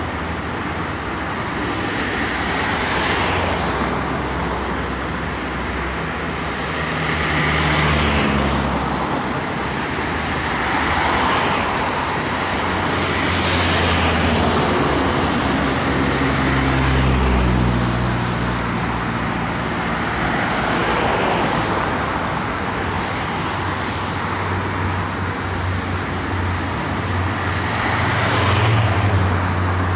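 Road traffic passing close by, one vehicle after another every few seconds, each rising and falling over a steady background rumble.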